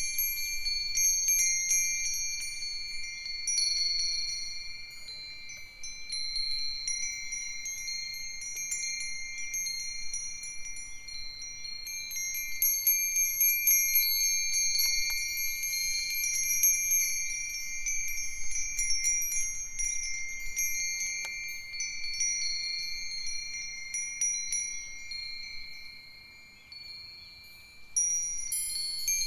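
A set of Japanese fūrin wind chimes ringing together in the breeze: Myōchin iron fire-chopstick chimes, Nambu cast-iron bells, Nousaku metal bells and a sanukite stone chime. They make a steady high, clear ring of overlapping strikes that never dies out. The ringing thins almost to nothing shortly before the end, then picks up again.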